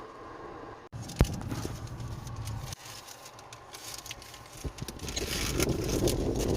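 Low steady rumble of a car, with a sharp click about a second in and scattered light handling clicks and scrapes, growing into a denser rustle over the last second or so.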